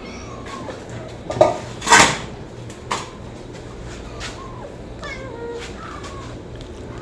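Kittens meowing, a series of short thin mews. A loud, brief noisy burst about two seconds in stands out above them, with a low hum underneath.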